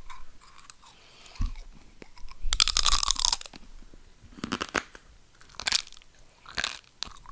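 Something hard and brittle being bitten and chewed, with one long, loud crunch about two and a half seconds in and then shorter crunches about once a second. It is made as a foley effect for bones crunching under the teeth.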